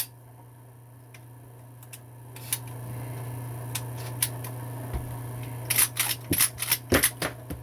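Metal clicks and clacks of a shotgun action being worked with roll-crimped reloaded shells: a sharp click as the action closes on a chambered shell, a few light clicks, then a quick run of clacks near the end as the action is cycled. The shells chamber and cycle smoothly. A steady low hum runs underneath.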